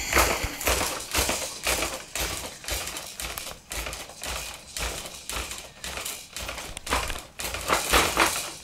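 Camera handling noise: irregular taps, knocks and rustles as the camera is moved about close against a corduroy cushion, with a louder cluster of knocks near the end.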